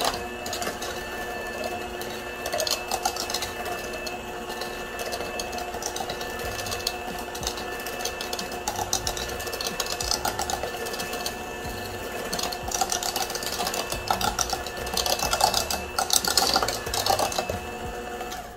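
Electric hand mixer running steadily, its beaters rattling against the bowl as it beats eggs into cake batter; the motor stops right at the end.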